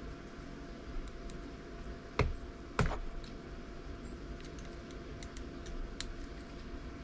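Small clicks and taps of a plastic backup camera housing being handled and its tight fasteners worked loose. Two sharper clicks come a little over two seconds in, with scattered lighter ticks before and after, over a steady low hum.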